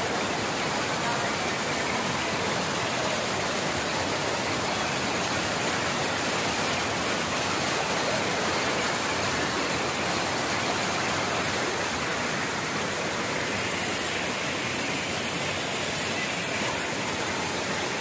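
Water pouring over a low weir and churning into the foaming pool below, a steady rush.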